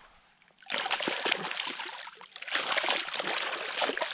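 A hooked striped catfish thrashing and splashing in shallow water as it is drawn in on the line, starting about a second in, with a brief lull a little after two seconds.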